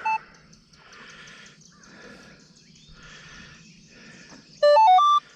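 Minelab Equinox 800 metal detector being switched on: a short beep, then near the end its loud start-up tune, a quick run of stepped electronic tones jumping up and down in pitch.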